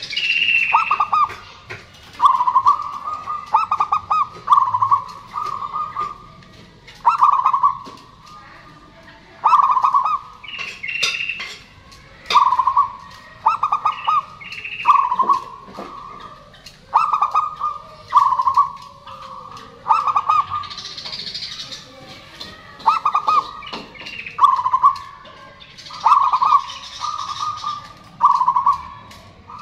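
Zebra dove (perkutut) cooing: phrases of short, trilled coo notes repeating every two to three seconds.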